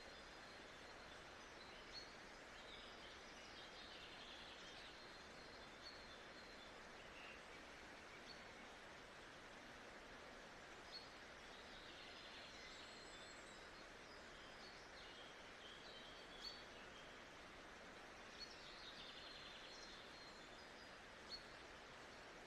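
Faint nature ambience: a steady soft hiss of background noise with birds chirping in short high bursts every few seconds.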